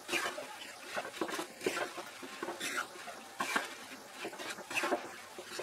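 Wooden spatula stirring fried goja pieces through sugar syrup in a pan: quiet, irregular soft knocks and wet scrapes, two or three a second.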